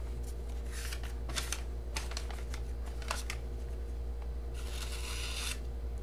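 A reprofiled Spyderco Dragonfly-copy folding knife slicing through a sheet of paper in a sharpness test: a few crisp paper crackles and ticks, then a longer rustling hiss of paper about three-quarters of the way through, over a steady low hum.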